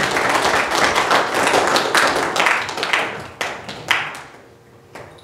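Small congregation applauding. The clapping thins out and dies away about four seconds in, with a few last single claps.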